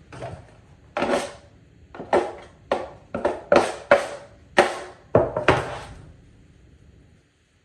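Drywall taping tools being worked: a run of about ten short, sharp scrapes or knocks, irregularly spaced over about five seconds.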